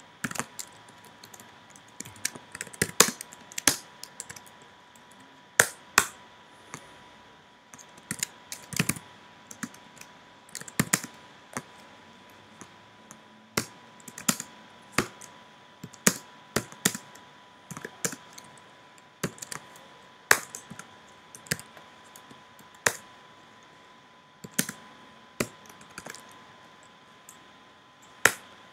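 Typing on a computer keyboard: irregular key clicks in quick runs separated by short pauses, over a faint steady tone.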